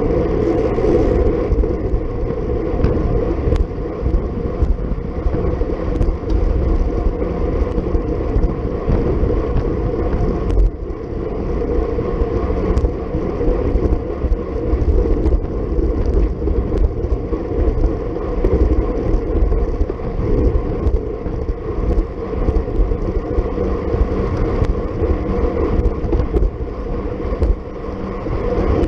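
Steady wind buffeting and road rumble on an action camera travelling at racing speed, with a few faint ticks scattered through.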